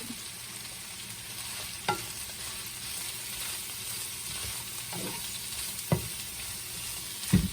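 Food sizzling steadily in a frying pan while being stirred, with a spoon or spatula knocking against the pan a few times.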